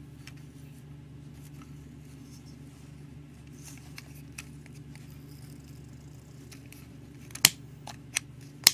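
Clicks from handling a novelty scooter-shaped cigarette lighter, with two sharp loud clicks near the end and a few fainter ticks, over a steady low hum.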